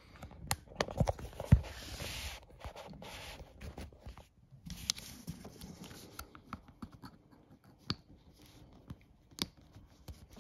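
Cable plugs and an adapter being handled: scattered plastic clicks and taps with rubbing and rustling, the sharpest clicks in the first two seconds.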